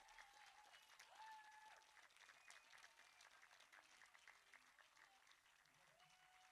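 Audience applauding, faint and slowly dying down, with a few voices heard over the clapping.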